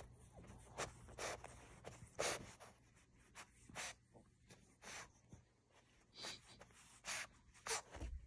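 French bulldog puppy sniffing and snuffling with its nose pushed into a blanket: about nine short, faint sniffs at irregular intervals.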